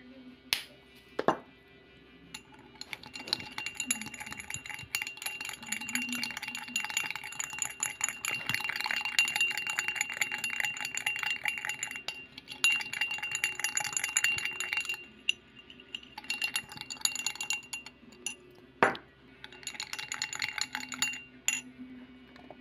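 Metal teaspoon stirring in a glass tumbler: quick, dense clinking against the sides with a steady ringing tone, in several spells with short pauses between them. A couple of sharp knocks come near the start and another one late on.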